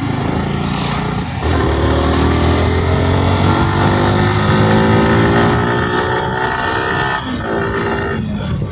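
Yamaha R15M's 155 cc single-cylinder engine pulling under throttle on the move, its pitch rising steadily for several seconds. About seven seconds in the pitch drops as the rider shifts up, then it eases off near the end.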